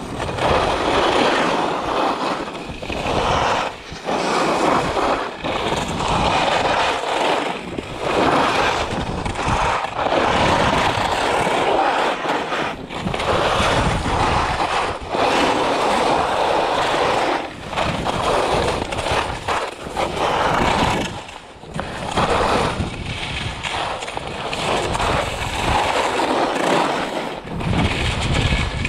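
Skis scraping and carving across snow, the hiss swelling and easing with each turn about every two seconds.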